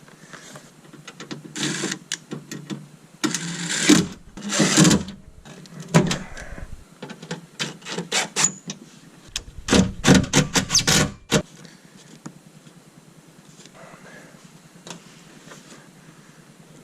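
Handling noise inside a car door while fitting a new rear power-window motor: irregular scrapes, rustles and clicks of parts being moved and pushed into place. The loudest clusters come about 4 seconds in and again around 10 to 11 seconds in, then only faint scattered clicks.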